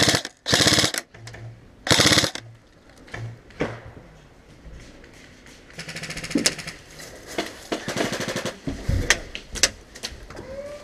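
Airsoft electric rifles firing on full auto: three loud, short bursts of rapid shots in the first two seconds or so, then a quieter stretch of rapid fire about six seconds in and a few single shots near the end.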